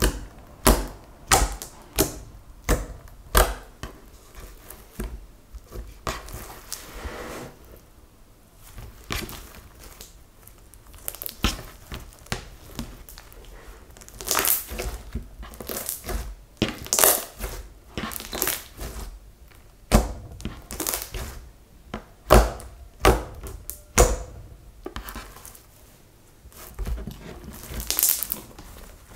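Hands poking and kneading a lump of silvery grey slime: sticky pops at a steady pace, about one every 0.7 s, for the first few seconds as fingertips press in and pull out, then squishing with irregular clusters of sharper pops as it is squeezed and folded.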